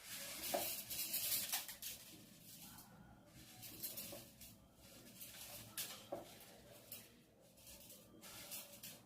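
Dry spices (long pepper and black peppercorns) rattling and rustling as they are tipped and handled in a mixer-grinder jar. The sound comes in uneven hissy bursts with a few light clicks, strongest in the first two seconds.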